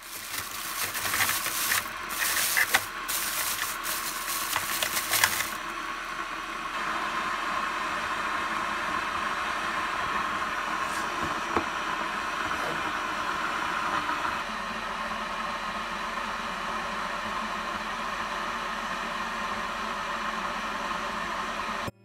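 Plastic bag rustling and crinkling for about the first five seconds, then a steady hiss.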